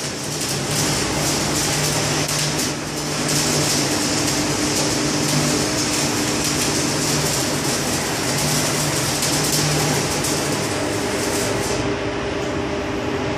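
Manual electric arc welding crackling and sizzling steadily from the booths, over a steady low hum. The crackle thins out near the end.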